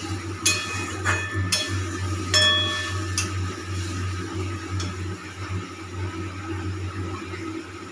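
Metal spatula scraping and knocking against a metal kadai while stirring frying masala, giving several sharp ringing clinks in the first few seconds and fewer later. Under it run a steady low hum and the faint sizzle of the frying.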